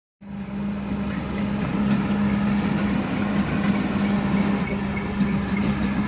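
Caterpillar E180 hydraulic excavator's diesel engine running steadily under work, a constant low hum over a continuous mechanical rumble.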